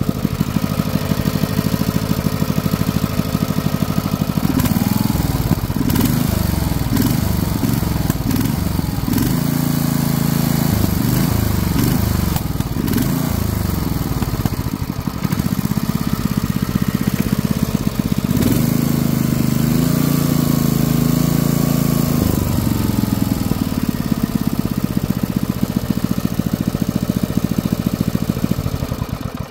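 Briggs & Stratton 5 hp horizontal-shaft tiller engine running after repair, its speed rising and falling several times as the throttle lever is worked, then starting to die away at the very end as it is shut off.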